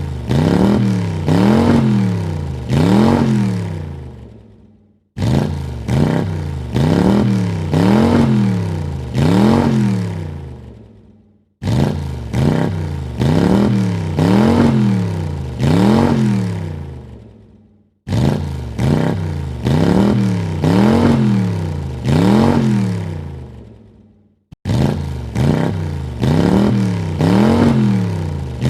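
Car engine revved in three quick blips, its pitch rising and falling with each, then dying away as the revs drop. The same sequence starts suddenly and repeats about every six and a half seconds.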